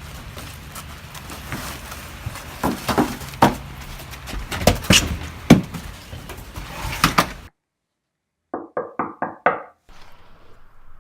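Irregular thumps and rustles over background noise, which stop abruptly. Then five quick knocks on a door, close together.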